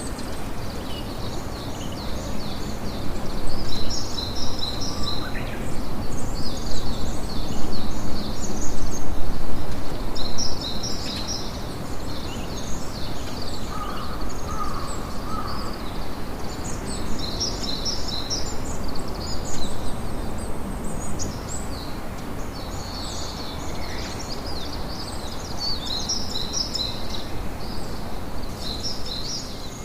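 Sea surf and wind forming a steady wash, louder for several seconds after the start, with small birds chirping in quick clustered bursts high above it throughout.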